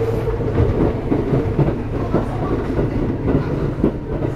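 Kintetsu 1420 series electric train (VVVF-GTO inverter) running along the line: steady running noise and motor hum with the clatter of wheels over the rails.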